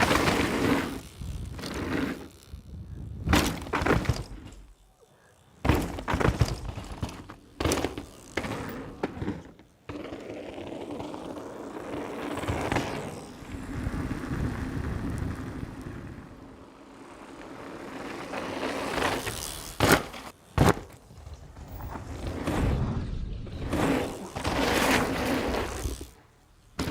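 Downhill mountain bike at speed over rough ground: tyres rolling and rattling on dirt and rock, with repeated sharp knocks and thuds from the frame, chain and suspension as it hits bumps and lands.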